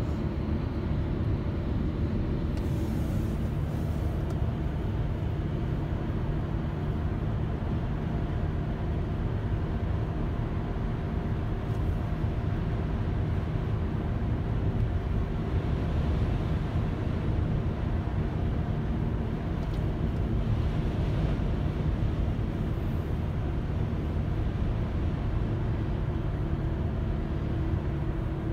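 Steady road and engine noise inside a moving car's cabin: a low, even rumble of tyres and engine at cruising speed.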